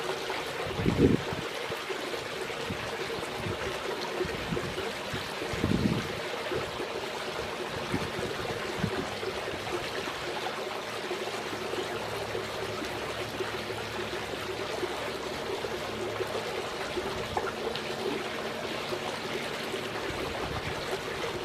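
Steady running, trickling water, with a couple of brief low bumps in the first six seconds.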